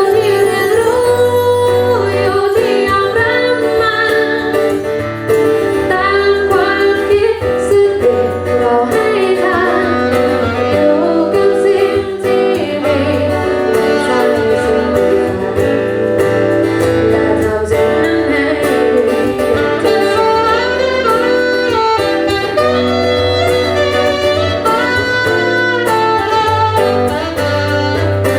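Music: a band playing a song, with a melodic lead over a steady bass line.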